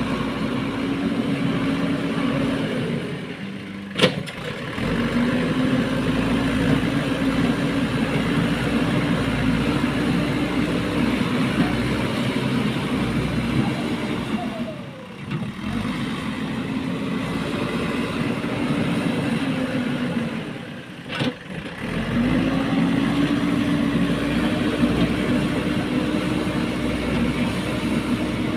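JCB 3DX backhoe loader's diesel engine running hard under working load in long stretches, easing off briefly three times between them. There is a sharp knock about four seconds in and another about two-thirds of the way through.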